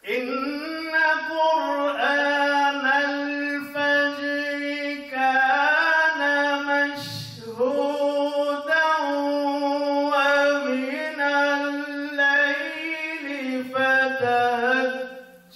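A man chants an unaccompanied melodic religious recitation into a hand-held microphone. He draws out long held notes with ornamented turns, and there is a short break about seven seconds in.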